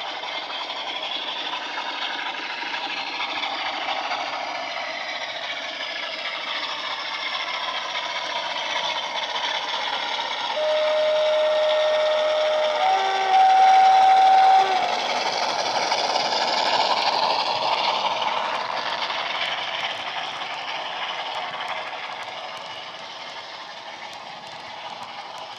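Sound decoder in a Bachmann Class 47 model playing the Class 47's Sulzer diesel engine running under power through a small tablet speaker. Partway through, the two-tone horn sounds: a lower note for about two seconds, then a higher note, the loudest moment. The sound swells as the locomotive approaches, then eases off as it passes.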